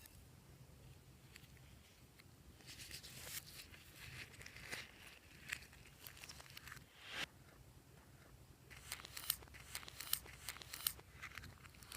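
Fluffy slime being kneaded and stretched by hand, giving soft sticky crackles and small pops. The crackling thickens into a quick run of clicks and pops over the last few seconds.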